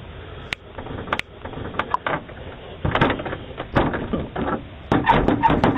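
A door being rattled and knocked against its frame, as someone tries to get in: a string of irregular clicks and bangs that grows louder and busier about halfway through.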